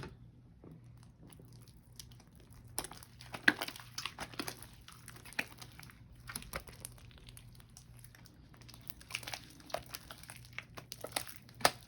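Hands kneading and pulling sticky clear glue slime, giving a run of irregular sticky clicks and crackles. The slime is still under-activated and very sticky.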